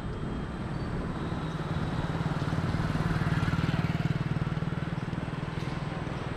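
A motor vehicle engine running with a fast, even pulse, growing louder to about three or four seconds in and then easing off.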